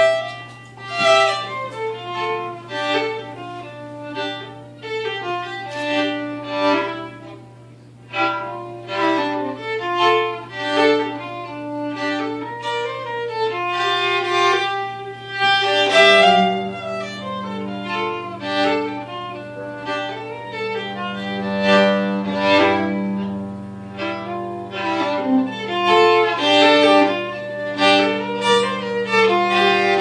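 Two fiddles playing a folk tune together over an upright bass bowing long held notes. The bass note moves up to a higher held note about halfway through, and the fiddles play on above it.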